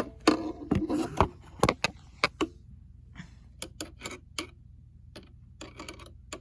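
Clatter and sharp clicks of a screwdriver and small metal parts being handled, dense for the first couple of seconds, then sparser light ticks.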